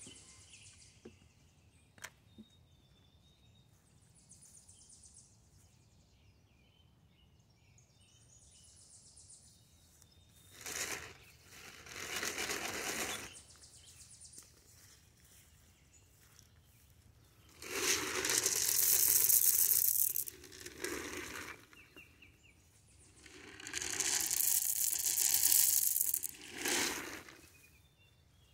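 Dry corn kernels rattling in a plastic container, shaken in about four bursts of one to three seconds with quiet spells between.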